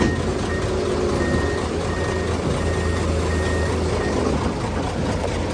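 Excavator's diesel engine running steadily with its warning beeper sounding repeated high beeps, which stop about four seconds in.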